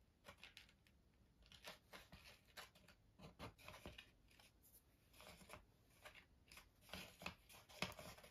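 Faint rustling and light clicks of cardboard tube pieces being handled and pressed together.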